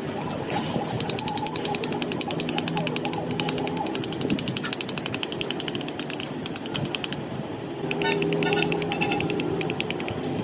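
Rapid, even mechanical clattering over a steady hum, easing off for about a second near seven seconds and then returning.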